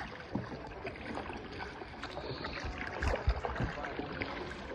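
Kayak paddles dipping and splashing, with water dripping and lapping around the hull, and a few low knocks about three seconds in.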